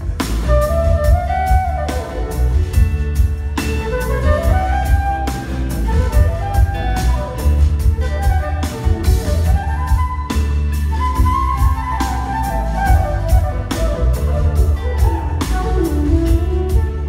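Live band playing an instrumental passage: flute and electric guitar lead lines gliding up and down over drums and bass.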